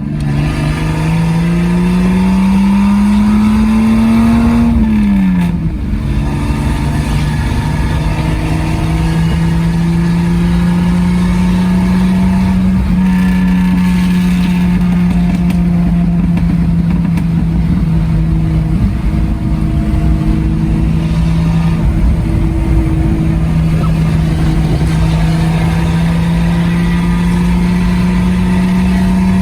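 1998 Jeep Cherokee XJ's 4.0 inline-six through a catless 2.5-inch side-dump exhaust with a mini cherry bomb muffler, loud. Its revs climb for about five seconds, drop sharply, then hold nearly steady with only slight rises and dips.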